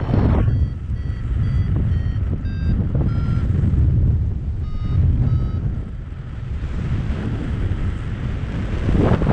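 Paragliding variometer beeping in short tones at shifting pitch, about two a second, the sound it makes when the glider is climbing in lift. Heavy wind rushes on the microphone throughout. The beeps stop a little over five seconds in, leaving only the wind.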